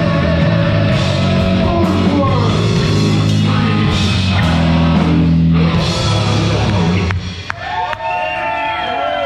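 Heavy metal band playing loud live, with distorted guitar, bass and drums. About seven seconds in the full band drops out, leaving ringing tones that bend up and down.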